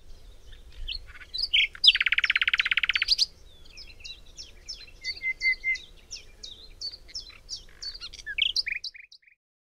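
Small songbirds chirping and twittering in short high calls, with one loud rapid trill about two seconds in that lasts about a second.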